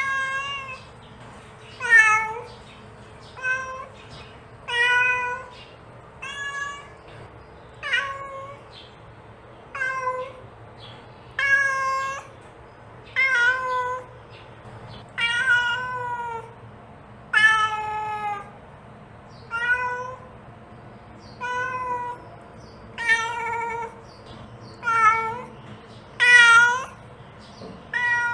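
Mother cat meowing over and over to call her kittens, one short pitched call about every one and a half to two seconds.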